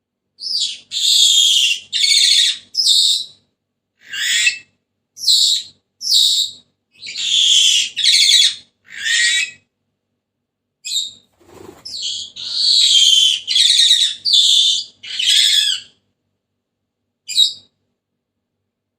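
Senegal parrot giving a long run of loud, shrill, harsh calls, each about half a second, in two bouts with a short pause between them. A dull thump sounds just after the pause.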